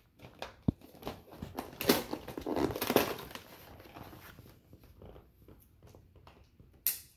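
Rustling and crinkling noise, loudest for about a second from two seconds in, among scattered light clicks and a sharp click near the end.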